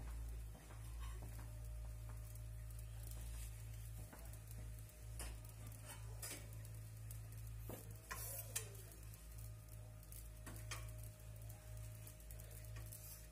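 Ooni Koda 16 gas pizza oven's burner running with a steady low roar, with scattered light clicks and ticks over it.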